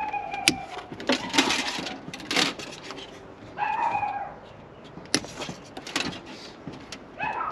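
A pet dog whining three times in short high-pitched cries, among scattered sharp clicks and knocks.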